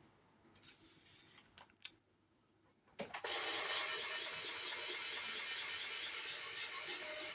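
Small electric gear motor of a Cat Mate C300 automatic cat feeder running. It starts with a click about three seconds in, runs steadily for about four seconds, and stops abruptly, after a few faint handling clicks.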